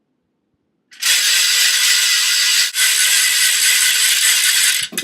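Handheld ratchet noisemaker spun fast, giving a loud continuous rasping clatter for about four seconds with a brief break midway.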